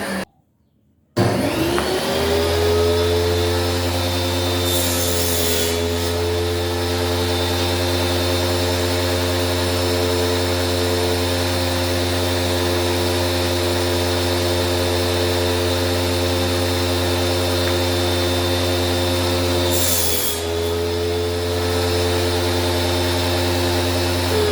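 Electric circular saw motor spinning up about a second in with a rising whine, then running at a steady pitch. Two short hissing bursts come about five seconds in and near the end, where the pitch also dips briefly. It cuts off suddenly at the end.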